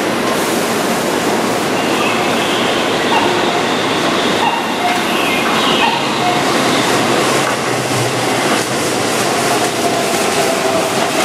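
Keihan 9000 series electric train running past close by on a curve: a steady rumble of wheels on rail with faint whining tones above it in the middle, and quick clicks over rail joints near the end.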